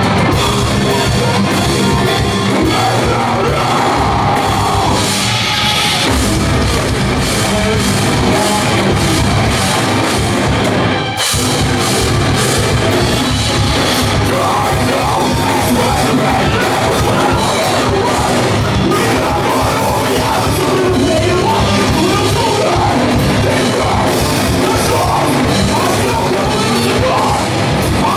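Live heavy metal band playing loud: electric guitars, bass and drums, with a vocalist yelling into the microphone. The band breaks off for a moment about eleven seconds in.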